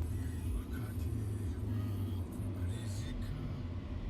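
A steady low outdoor rumble, with faint scattered higher sounds over it.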